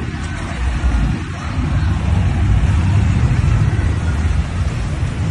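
Vehicles running through a shallow river crossing: a steady low engine rumble with a noisy haze over it, growing louder about a second and a half in.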